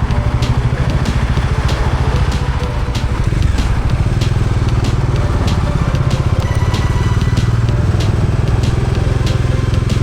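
Motorcycle engine running under way, with the engine note dipping briefly about two and a half seconds in and then picking up again. Scattered sharp ticks sound over it.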